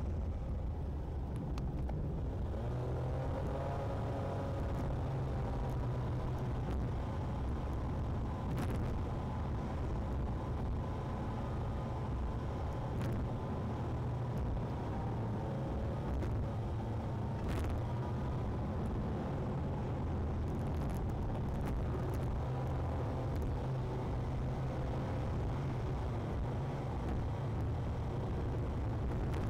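Steady engine and road-noise rumble heard from inside a moving road vehicle, with a faint whine that slowly rises and falls in pitch as the speed changes, and a few light clicks.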